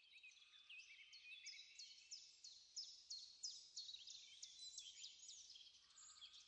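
Faint birdsong: a steady string of quick, high chirps, about three a second.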